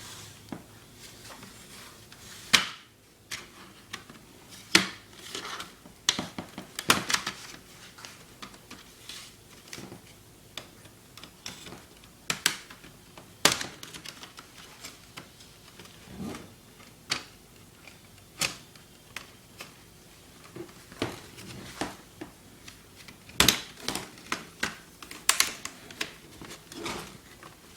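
Plastic top chassis of an HP Pavilion G7 notebook being pried off its base, the clips snapping loose in a long, irregular run of sharp clicks and snaps.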